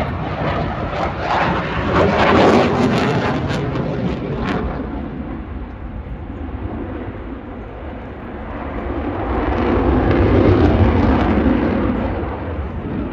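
Aircraft in an air-show display flying past, a loud rushing engine noise that swells to a peak about two seconds in, eases off, then swells again about ten seconds in.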